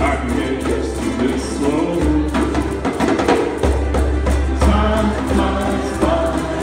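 A ukulele ensemble strumming together in a steady rhythm while the group sings along, a lead voice at a microphone over the chorus.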